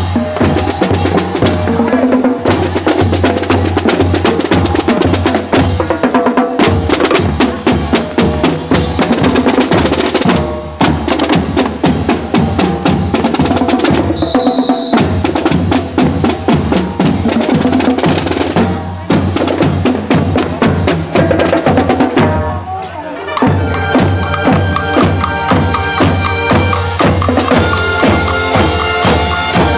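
Marching brass band playing in the street: a fast, busy drum and percussion beat with brass over it. About three-quarters of the way through, after a brief dip, the brass shifts to sustained chords over the beat.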